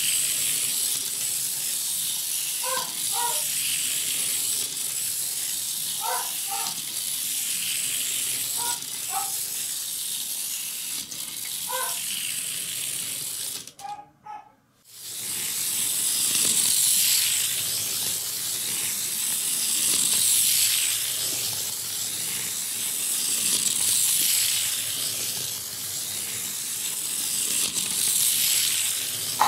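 Steady steam-like hissing, with short two-note tones about every three seconds in the first half. The sound drops out briefly about halfway through, then the hiss comes back louder.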